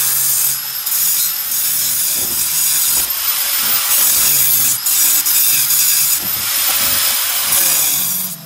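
Angle grinder cutting through a school bus's sheet-steel side panel: a loud, steady grinding screech that dips briefly a couple of times and cuts off just before the end.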